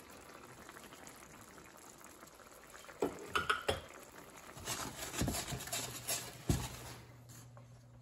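Wine-and-butter sauce simmering gently in a skillet, with clinks of a knife and butter dish as butter pats go in, about three seconds in and again between about five and six and a half seconds. A low steady hum starts past the middle.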